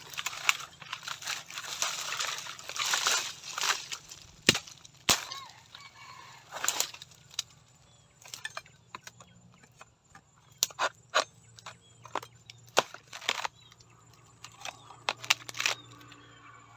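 Irregular sharp cracks and snaps, with a stretch of rustling in the first few seconds and scattered clicks after.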